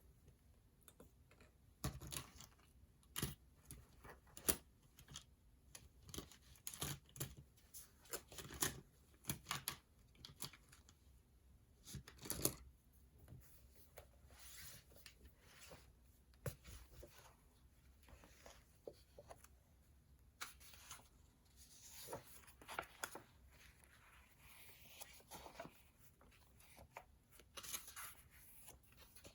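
Faint desk sounds of studying: pen scratching on paper and paper rustling, with scattered light taps and clicks at irregular intervals.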